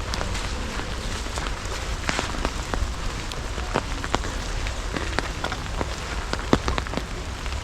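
Steady rain falling, with irregular sharp drop taps close by over a steady low rumble.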